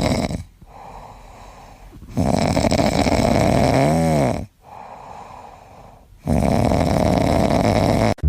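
A pet snoring loudly: three long snores, each lasting about two seconds, with quieter breathing between them. The middle snore ends in a brief whistle that rises and falls in pitch.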